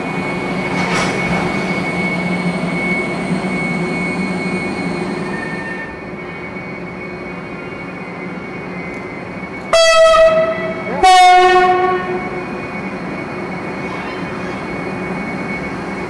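Locomotive running with a steady hum, then sounding its horn in two loud blasts of about a second each, the second a little higher in pitch.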